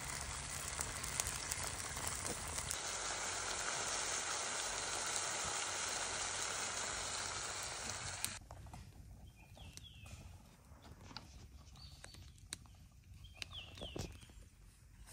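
Chicken and tomato stew bubbling steadily in a cast-iron pot over a wood fire, with the fire crackling. About eight seconds in the sound drops abruptly to a quiet background with a few faint chirps and small clicks.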